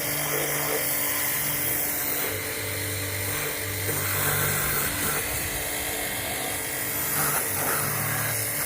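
A tool cleaning a diesel cylinder head, running steadily with a hissing whir and a low hum that keeps cutting in and out, as valve-lapping compound is cleared off the head.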